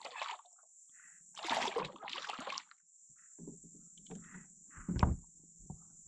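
Water splashing and sloshing around a kayak in several separate bursts, the loudest about a second and a half in, with a sharp knock about five seconds in. A steady high hiss runs underneath.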